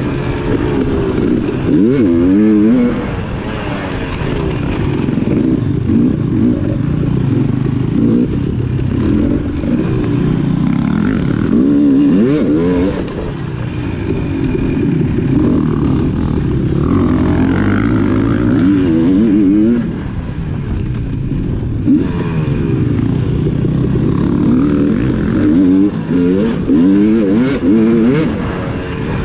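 Off-road dirt bike engine revving continuously, its pitch rising and falling again and again with throttle and gear changes. There are a few short knocks and rattles from the bike.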